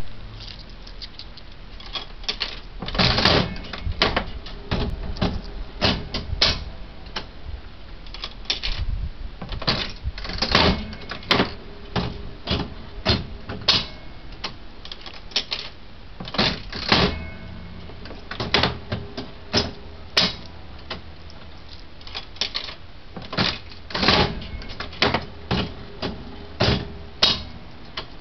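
Irregular sharp mechanical clicks and clacks, sometimes several in quick succession, with short pauses between.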